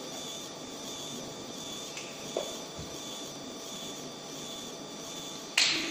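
20 W Raycus fiber laser marking machine running while it engraves a photo, with a steady high buzz that pulses about twice a second over a low hum. A short burst of noise comes near the end.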